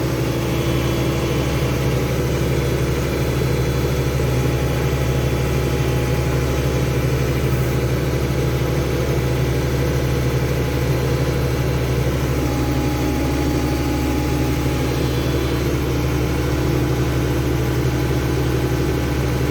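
Tractor engine running steadily at low speed while towing a hay baler.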